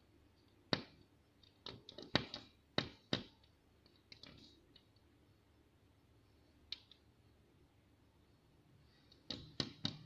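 A bulbul striking the window glass with its beak, making sharp taps. There is a quick run of them in the first few seconds, a lone tap past the middle and three quick ones near the end. The uploader puts the pecking down to the bird being confused by the shadow of a climbing grape vine.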